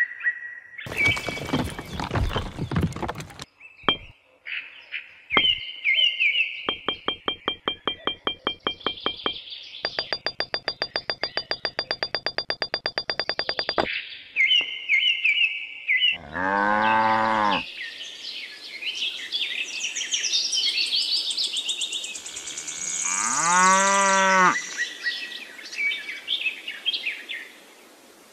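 A string of edited sound effects over chirping insect and bird ambience. It starts with a short clatter and runs into two long strings of rapid, evenly spaced clicks. Then come two drawn-out low calls that rise and fall in pitch.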